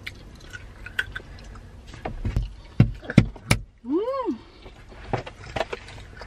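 Close eating sounds from a soft Filet-O-Fish sandwich being bitten and chewed: a run of sharp mouth clicks and smacks about two to three seconds in, then a short hum that rises and falls in pitch.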